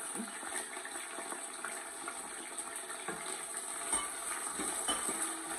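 Sliced onions tipped from a bowl into a pan of tomato sauce and stirred in with a wooden spoon: wet stirring through the sauce, with a few light knocks of the spoon against the pan about four and five seconds in.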